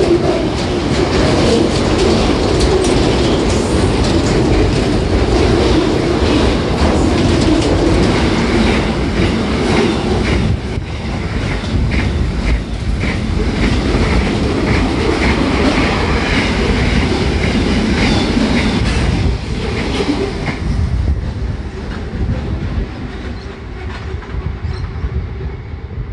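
Wagons of a fast SCT freight train rushing past at track speed: a steady rumble of steel wheels on rail, with repeated sharp wheel clicks. The sound fades away over the last several seconds as the end of the train goes by.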